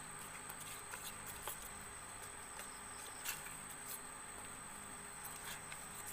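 Spoon stirring thick chickpea-flour batter in a stainless steel bowl: scattered soft clicks and scrapes as it knocks and drags against the bowl, over a faint steady high-pitched whine and hiss.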